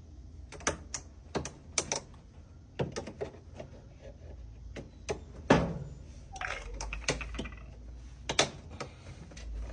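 Irregular clicks and light knocks from hand work on a washing machine's underside parts as retaining clips are pried off, with a louder knock about five and a half seconds in.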